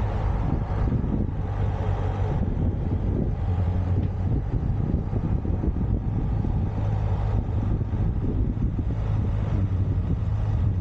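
Steady low drone of a running vehicle engine, a constant hum with road or motion noise over it.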